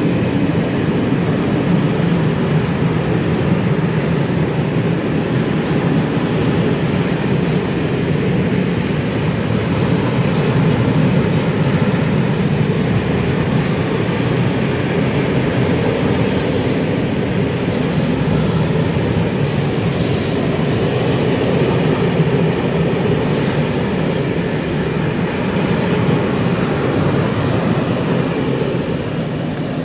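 Freight train of tank wagons rolling past, a steady rumble of steel wheels on rail. High-pitched metallic squeals come and go through the second half.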